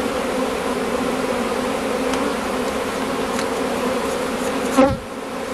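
A swarm of honeybees buzzing steadily around the entrance of the hive it has just been put into, a dense, even hum. Near the end there is a brief louder sweep in pitch.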